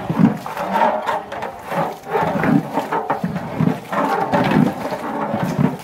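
A long metal ladle stirring and scraping sliced onions into thick biryani masala in a large aluminium pot, stroke after stroke, about two a second.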